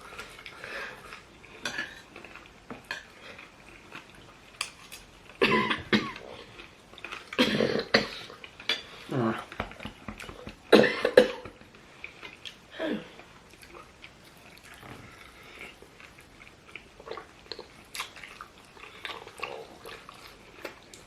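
A woman coughing in a string of short, loud coughs, mostly between about five and thirteen seconds in, with spoons and dishes clinking now and then.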